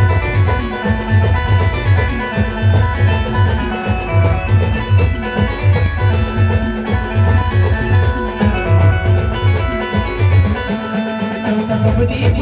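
Instrumental Timli dance music: a bright plucked-string melody over a heavy, steadily repeating drum beat. The beat drops out for about a second near the end.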